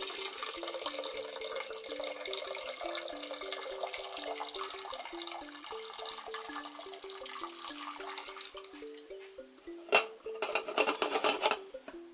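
Liquid pouring and trickling steadily through a cloth strainer into an aluminium pot, over background music. About ten seconds in the pouring stops, and a quick run of sharp metal knocks and clinks follows as the pots are handled.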